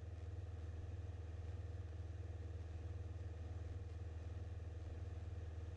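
Grumman Tiger's four-cylinder Lycoming O-360 engine and propeller in flight, a steady low drone with a fast, even pulse, heard through the aircraft's intercom feed.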